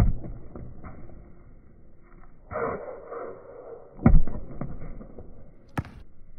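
Basketball being dribbled on an outdoor hard court: a run of ball bounces, with a sharp thump at the start and the loudest one about four seconds in.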